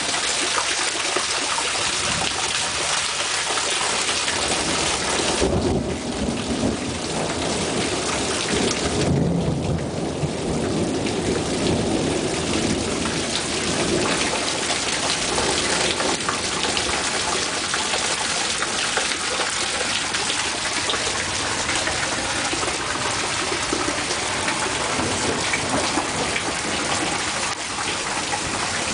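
Heavy thunderstorm rain pouring steadily, with thunder rumbling twice, about six and about nine seconds in.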